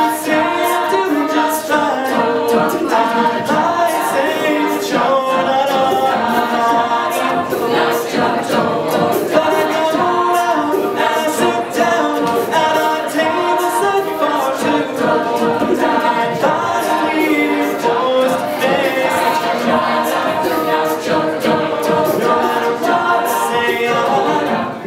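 Mixed men's and women's a cappella group singing in close harmony, several voice parts moving together over a steady run of sharp percussive clicks.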